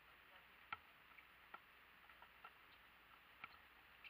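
Faint, sharp knocks of a basketball bouncing on an asphalt court, coming irregularly about once a second, the loudest about a second in.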